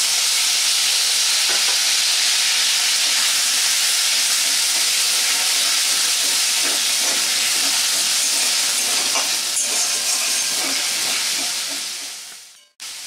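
Ginger paste sizzling in hot oil in a kadai, with a metal spatula stirring and scraping through it. The sizzle is loud and steady, then fades out near the end.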